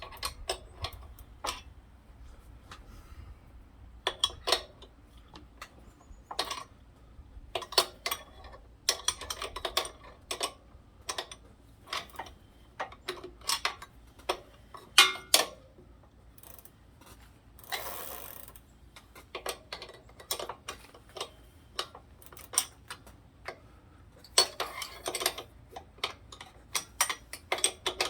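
Irregular metallic clicks and ratcheting as a bicycle pedal is worked into a crank arm whose threads are galled. About 18 seconds in there is a short hiss from an aerosol can of lubricant being sprayed into the threads.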